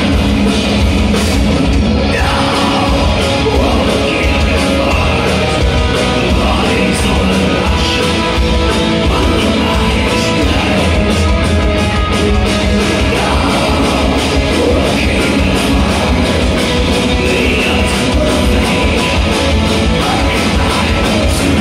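Live melodic death metal band playing at full volume: distorted electric guitars, bass, keyboards and drums, with lead vocals sung and shouted into a microphone, heard from within the audience.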